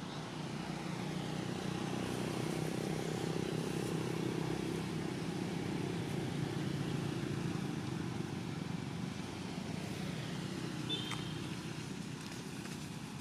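A motor vehicle passing on a road, its engine and tyre noise swelling over the first couple of seconds and slowly fading away. A short high chirp sounds near the end.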